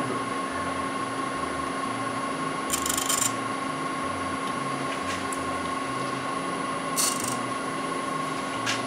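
A Laguna wood lathe runs with a steady motor hum and whine, a Kentucky coffee tree bowl blank spinning on it. Twice, about three seconds in and again near seven seconds, there is a short scratchy rasp against the spinning wood.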